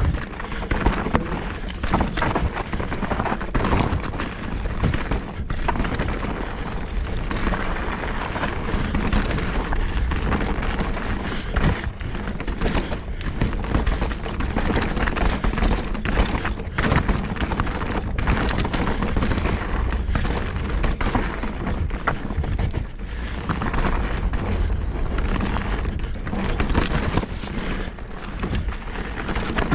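Mountain bike ridden fast down dirt singletrack: tyres rolling and scrabbling over the trail, with frequent sharp knocks and rattles from the bike over bumps and roots, and a constant rumble of wind on the microphone.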